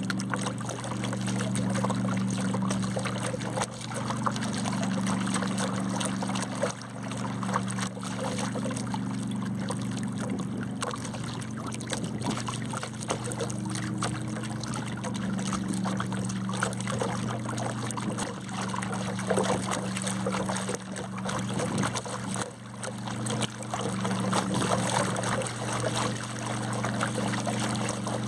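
Water splashing and trickling past a sled-mounted camera towed just above the surface of calm water, with a steady low hum underneath.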